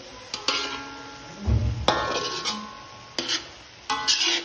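Metal spatula clanking and scraping against a metal wok while stir-frying water spinach with pork, each strike ringing briefly; there is also a dull thump about a second and a half in.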